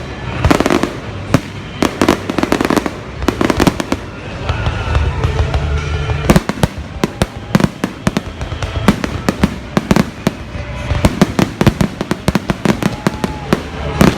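Fireworks display: rapid, overlapping bangs and crackles, many per second, with a brief dip about six seconds in before one of the loudest bangs, and a denser run of bursts in the last few seconds.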